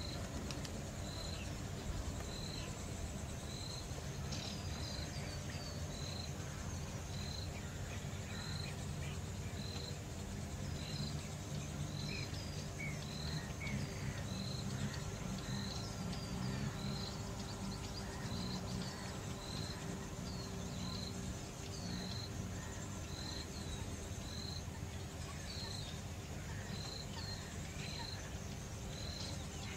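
Outdoor wildlife ambience: a short high call repeats at an even pace, about once every second and a bit. A few brief scattered bird chirps and a steady low rumble sit underneath.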